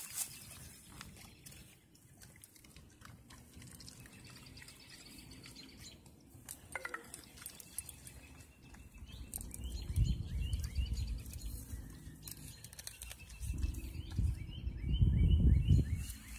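Birds chirping in the background, with low rustling bumps of the phone's microphone brushing through grass that grow loudest in the last few seconds.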